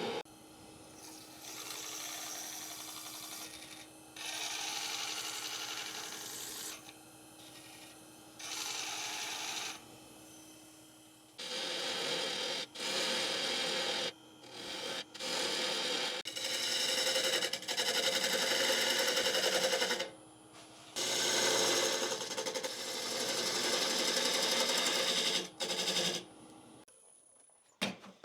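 Turning tool cutting very dry oak on a running wood lathe, shaping the foot of a bowl in repeated scraping passes a few seconds each, over the steady hum of the lathe motor. The lathe stops near the end.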